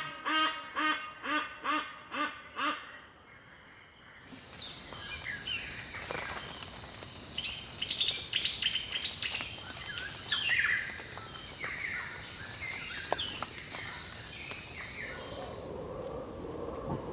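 Ethiopian montane cloud forest ambience: for the first few seconds an animal gives a repeated call of about two notes a second over a steady high insect whine, then many birds chirp and call over a steady thin insect tone. A lower, rougher sound comes in near the end.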